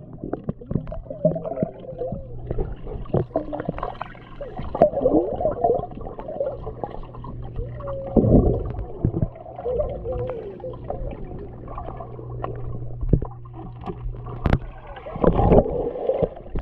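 Muffled sound heard through a GoPro underwater in a swimming pool: a steady low hum with gurgling and bubbling water. The water churns louder about eight seconds in and again near the end, when the swimmer pushes up through a cloud of bubbles.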